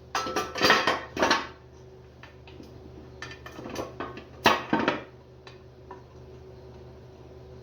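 Metal parts clinking and clattering as a bellhousing and its engine plate are handled and fitted to a big-block Chevy engine, in two bursts: one in the first second and a half, another about three to five seconds in.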